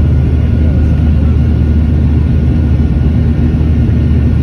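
Steady in-cabin roar of a Boeing 737-700 in flight, its CFM56 turbofan engines and rushing air heard from a window seat over the wing, deepest in the low range, with a faint steady whine above it.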